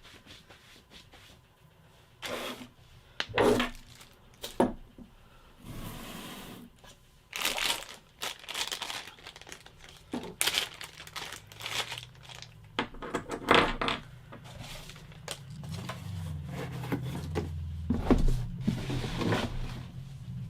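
Plastic packaging crinkling and tearing in short bursts as water filter elements are unwrapped and handled. A low steady hum comes in past the middle.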